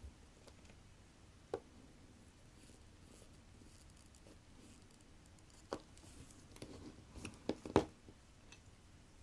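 Faint small clicks and taps of a fine metal tool and the movement holder on a watch movement as the wheels are nudged so their pivots seat, with a cluster of sharper, louder clicks near the end.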